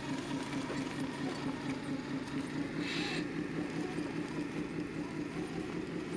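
Motor and geared drivetrain of an RC scale Tatra 815 trial truck crawling over rocky ground: a steady low whine that pulses several times a second, with a short hiss about three seconds in.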